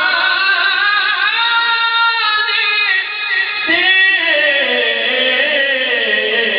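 A man reciting a naat (Urdu devotional poem) into a microphone, with no instruments. He draws out long, ornamented notes that glide up and down in pitch.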